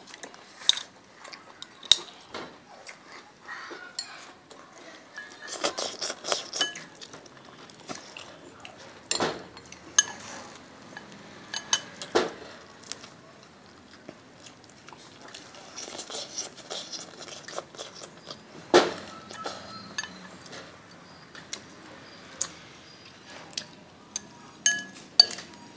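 Cutlery and dishes clinking at irregular intervals during a meal: scattered short knocks and clinks of spoons or chopsticks against bowls and plates, a few of them ringing briefly.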